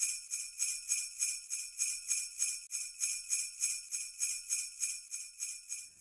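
Sleigh bells shaken in a steady beat, about four shakes a second, ringing brightly with nothing else beneath them; they stop right at the end.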